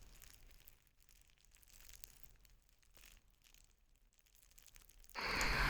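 Near silence, then about five seconds in a loud, even hiss starts suddenly, with a few sharp clicks over it.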